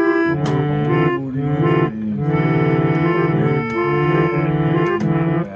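Instrumental backing music with sustained organ-like chords and a few sharp percussive clicks.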